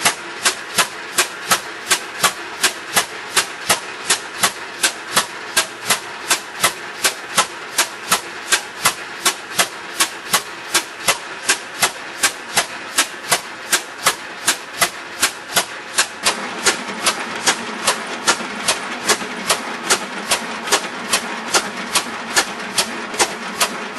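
Compressed-air-driven free piston engine running steadily, each stroke a sharp, regular clack, nearly three a second. A steadier whir of the running mechanism grows louder about two-thirds of the way through.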